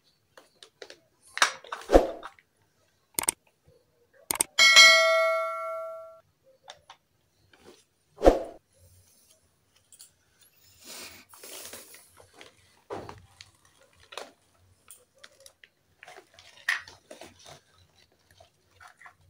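Small plastic toy kitchen pieces handled and set down on a hard tabletop: a scatter of sharp clicks and knocks with some rustling. About four and a half seconds in comes a single ringing ding, the loudest sound, which fades over about a second and a half.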